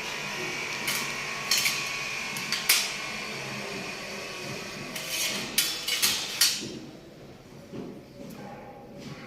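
Sharp metallic knocks and taps, about eight spread irregularly, from handling a sheet-metal cable tray and tools while it is being marked out.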